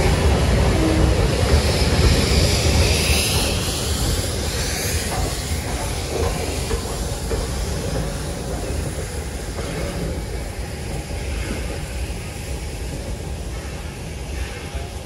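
Steam train running past, a loud low rumble with a higher rushing sound over the first few seconds, growing steadily fainter as it moves away.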